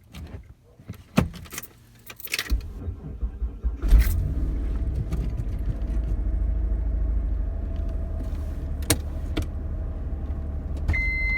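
Keys jangling and clicking, then the 1993 Mitsubishi 3000GT SL's 3.0-litre V6 cranks and catches about four seconds in and settles into a steady idle. Near the end a steady high electronic beep starts.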